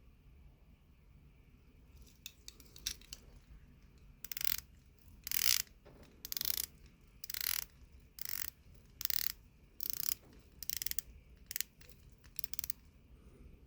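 Orient Mako II dive watch ratcheting: a few faint clicks, then about nine short bursts of rapid fine clicking, roughly one a second.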